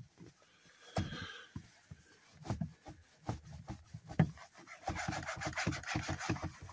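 A cloth scrubbed over the leather of a Jaguar XK8 steering wheel in short, irregular rubbing strokes, which become a fast, dense run of scrubbing about five seconds in. The wheel's worn leather is being wiped clean of dirt.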